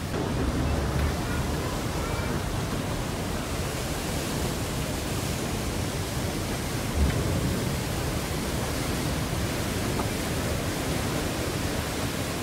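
Steady rush of water churned up by the paddle steamer's paddle wheels as it comes alongside the pier, with one brief low thump about seven seconds in.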